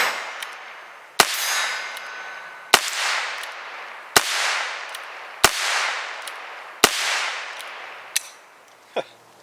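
Heritage Rough Rider .22 LR single-action revolver with a 16-inch barrel firing five shots, about one and a half seconds apart, each a sharp crack with a fading tail. Two lighter clicks follow near the end.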